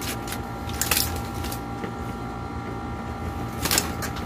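Aluminium foil wrapper crinkling and crackling as it is peeled open from around a burger, with sharper crackles about a second in and again near the end. A steady hum runs underneath.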